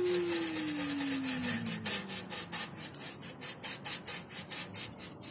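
Tambourine jingles shaken in a steady rhythm, about four beats a second. A single low note slides slowly downward over the first two seconds.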